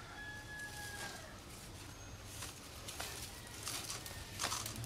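A rooster crowing, its call trailing off about a second in, then rope rustling and swishing as it is pulled through a PVC pole handle, a few short swishes with the loudest near the end.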